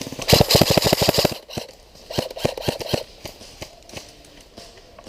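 Airsoft guns firing: a loud burst of rapid full-auto shots lasting about a second, a shorter, fainter burst about two seconds in, then scattered single shots.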